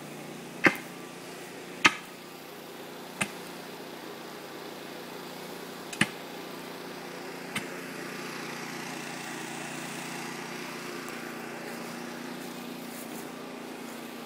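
Five sharp knocks at uneven intervals through the first eight seconds, the first two the loudest, over a steady low mechanical hum.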